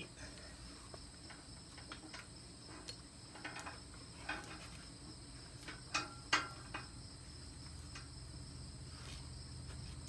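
Steady high drone of insects in the summer field, with scattered light clicks and knocks of a lifting strap and chain being handled on a log at a sawmill, the loudest pair about six seconds in.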